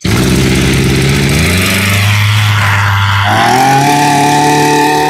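Small two-stroke brush cutter engine catching on the pull-start right after its priming bulb is pumped and the choke closed, then running. Its speed steps up about a second and a half in, and higher again just past three seconds.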